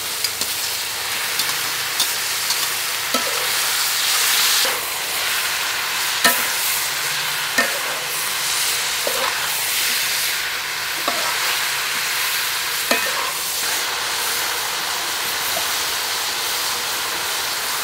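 Leatherjacket fish pieces sizzling in a hot steel wok while being stir-fried with a metal spatula, which scrapes and clinks against the wok now and then. The sizzle swells briefly about four seconds in.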